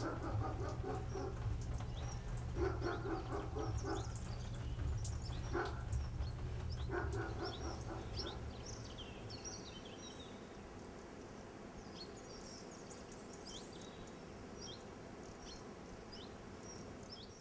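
Birds chirping in an outdoor country ambience, with a few louder, lower calls in the first half. A low rumble underneath fades out about eight seconds in.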